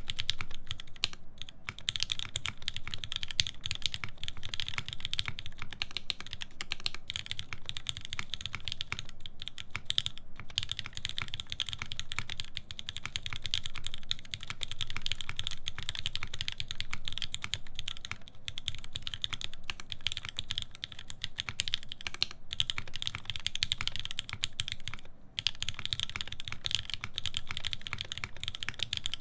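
Continuous fast typing on a mechanical keyboard with lubed Cherry MX Black linear switches in an aluminium plate, under GMK keycaps. It is a dense run of keystroke clicks, broken by a few brief pauses.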